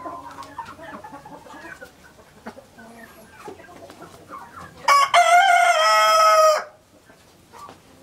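Hens clucking softly, then a rooster crows once about five seconds in: a loud crow lasting nearly two seconds that steps down in pitch before cutting off.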